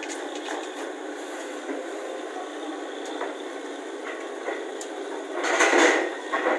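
Borewell drilling rig running with a steady mechanical noise and a few faint knocks. The noise surges louder for about a second near the end.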